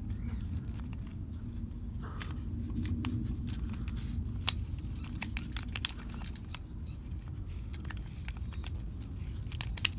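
Scattered light clicks and rattles of small metal and plastic door-handle parts being worked loose by hand, with two sharper clicks about four and a half and six seconds in, over a steady low rumble.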